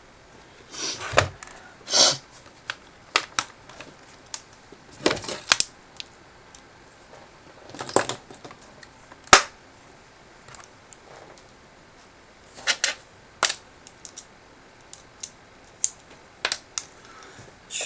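Sharp plastic clicks and snaps from a laptop being pried apart, the keyboard's retaining clips letting go, in irregular clusters with one sharper snap about halfway through.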